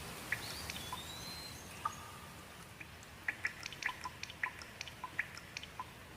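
Steady light rain hiss with many separate drops ticking and dripping close by, coming thicker and faster in the second half. A faint high whistle slides briefly about a second in.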